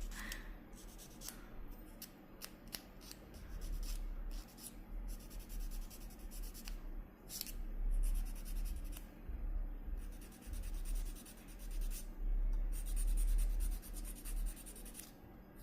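Small hand tools working an artificial nail into shape: a run of sharp clicks in the first few seconds, then irregular rubbing and scraping strokes against the nail.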